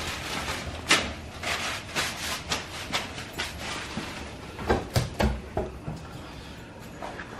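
Pork butt and sausage sizzling in hot oil as they brown in a pot on a gas stove: a steady hiss with scattered crackling pops. A few dull knocks about five seconds in.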